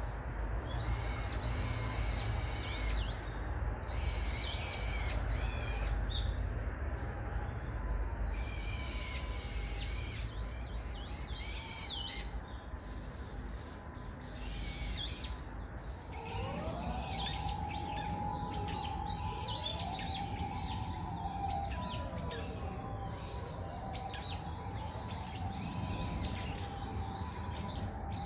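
Several small songbirds singing and calling in woodland, over a steady low rumble. From about the middle, a low, soft whistled call that rises and falls in slow arcs repeats several times.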